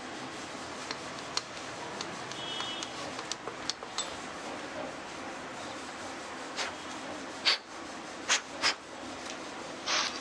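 Small metal engine parts being handled in an open motorcycle crankcase: light clicks and taps, with three sharper knocks about two-thirds of the way through, over a steady background hiss.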